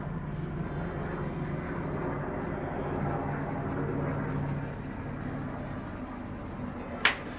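Felt-tip markers scratching over paper as two people color, over a steady low hum. A short, sharp squeak about seven seconds in.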